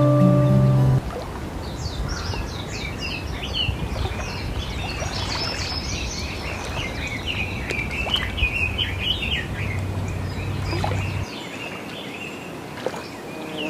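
A chorus of small birds chirping and twittering in rapid short calls, over a low background rumble that drops away about eleven seconds in.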